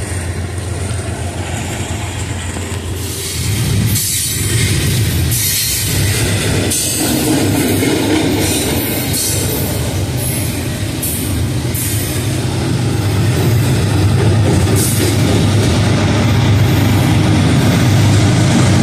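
Double-stack container train rolling past close by: a steady heavy rumble of steel wheels and rattling well cars that grows louder about three and a half seconds in, with irregular bursts of high wheel squeal. Near the end a deeper engine hum builds as the train's BNSF diesel locomotives draw near.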